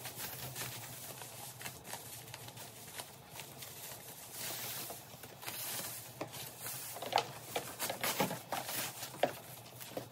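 Faint rustling and crinkling of white wrapping being pulled off a leather bag strap, with scattered light clicks from handling.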